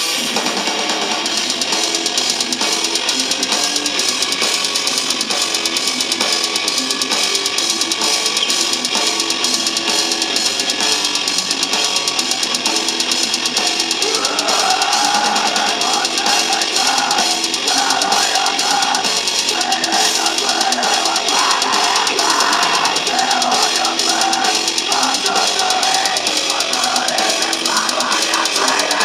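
Loud live heavy rock music from a band with a drum kit: drums and cymbals driving steadily, recorded from the crowd. A new, higher part joins about halfway through.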